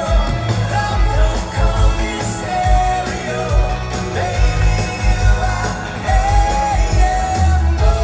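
Live rock band in concert: a male lead singer holding long sung notes over drums and electric guitar, with a steady pulsing kick drum.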